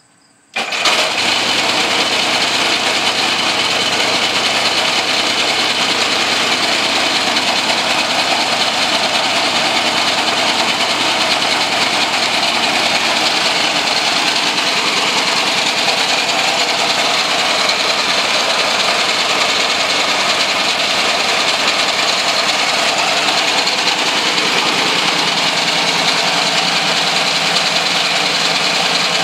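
Homemade three-cylinder engine starting abruptly about half a second in, then running steadily.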